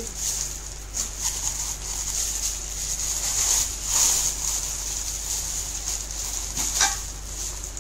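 Clear plastic wrapping crinkling and rustling as it is crumpled and pulled off a small hammered-steel handi serving pot, with a sharper click near the end.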